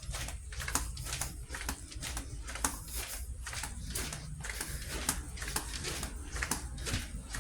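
Brisk footsteps on a hard floor: a quick, even tapping about four a second, over a steady low hum.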